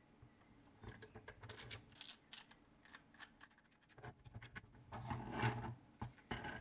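3D-printed PLA tripod parts being handled and screwed together: faint plastic clicks and scrapes as a threaded bolt and knurled nut are turned, with a louder rubbing of the parts about five seconds in.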